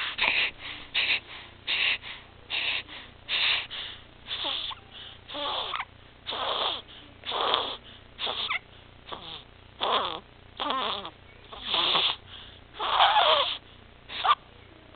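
Six-week-old baby breathing with stridor: a noisy sound on each breath, about one a second, with a wavering pitch in some of them and the breaths spacing out a little near the end. The stridor is the sign of laryngomalacia and tracheomalacia, a floppy voice box and windpipe narrowing his airway.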